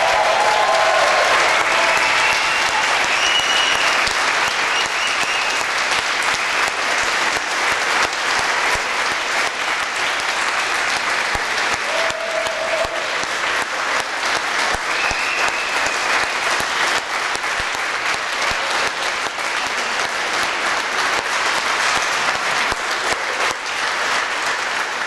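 Audience applauding at length after a choir song, the last sung notes dying away at the very start; the clapping stays steady throughout.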